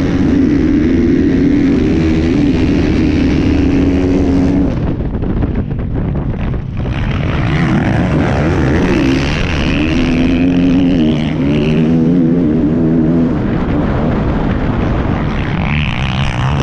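Motocross bike engine heard from the rider's helmet, held at high revs down the start straight, then backing off about four seconds in and revving up and down repeatedly through the turns, with a sharper high rev near the end. Other dirt bikes' engines run close alongside.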